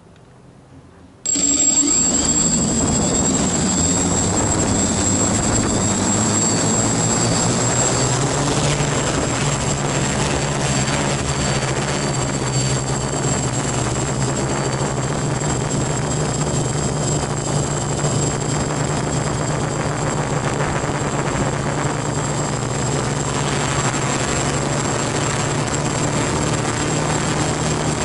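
F450 quadcopter's four brushless motors and propellers start suddenly about a second in and run steadily as the quad lifts off and climbs, heard from a camera strapped to its frame. The pitch rises over the first few seconds, then holds, with a thin high whine above it.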